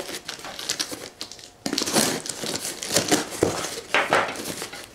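Cardboard shipping box being pulled open by hand, its flaps tearing loose and crinkling in irregular rustling scrapes, with a short pause about a second and a half in.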